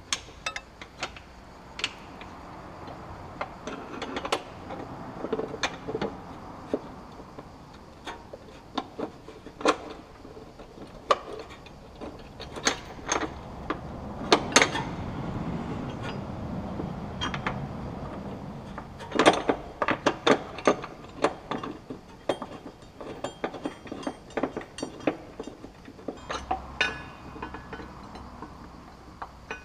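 Metal tow-bar fixing parts (bolts, washers and mounting brackets) clicking and clinking against the car's steel chassis rail as they are handled and fitted by hand. The sharp clicks come at irregular intervals, some in quick clusters.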